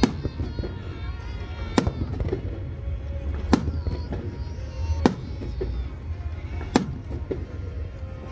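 Fireworks exploding: five sharp bangs roughly every second and a half to two seconds, each followed by a few fainter pops, over a steady low rumble.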